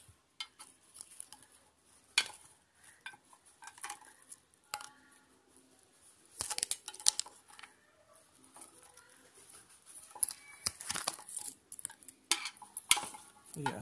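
Hands handling a resin watch, its cardboard box and a paper tag on a string: scattered clicks and taps with short bursts of paper and cardboard rustling, the sharpest tap about two seconds in and the busiest rustling around six to seven and ten to thirteen seconds in.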